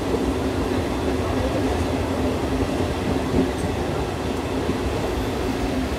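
Passenger train running along the line, heard from on board: a steady rumble of wheels on the rails.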